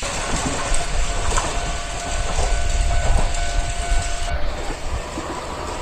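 Dubbed-in train sound effect: a train running on rails with a dense, irregular rattle and a faint steady tone that stops about four seconds in.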